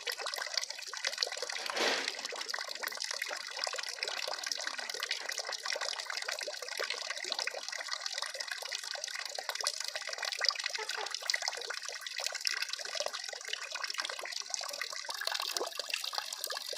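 Steady trickling of running water, with a brief louder rush about two seconds in.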